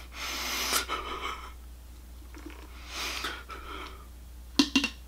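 A man's mock crying: two long, breathy sobbing breaths, then a few short catches of his voice near the end.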